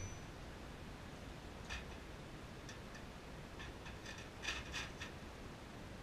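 Faint, scattered light metal clinks of blacksmith's tongs and a workpiece being handled in a coal forge: a few single ticks, then a small cluster about four and a half seconds in. The ring of the last hammer blow on the anvil dies away at the start.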